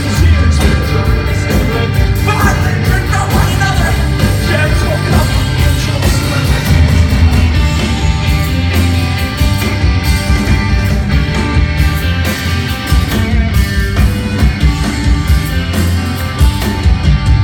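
Rock band playing a song loud and dense, with heavy bass and drums under it and a vocal line, strongest in the first few seconds.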